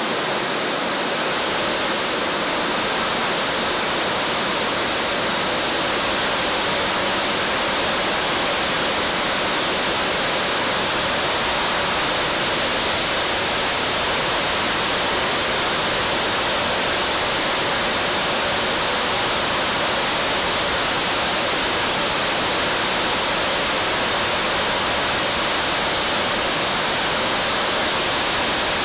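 Small turbojet engine running at high throttle: a steady, even roar of rushing air with a faint high whine held on top.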